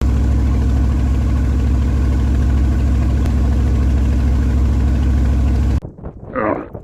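Boat engine running steadily at idle with a loud, even low hum. It cuts off abruptly near the end, replaced by short repeated sounds with a wavering pitch, about two a second.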